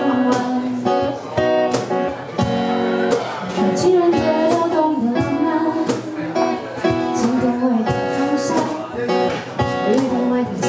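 Band music: a guitar strummed in a steady rhythm, with singing over it.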